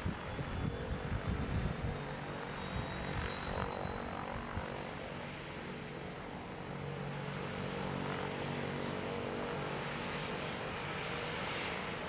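A floatplane's propeller engine running steadily at the dock, a continuous hum, with uneven low rumbles in the first two seconds.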